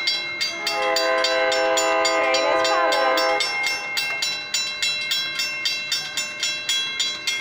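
Railroad crossing bell ringing in quick, even strokes throughout, while an approaching train's horn sounds one long chord from about a second in until past the three-second mark.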